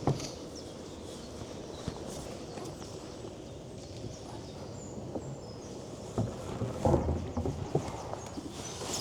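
Hollow knocks and clunks of a cedar-strip canoe bumping and being handled as it comes in to moor, with a few single knocks early on and a cluster about six to eight seconds in, over a steady hiss of wind.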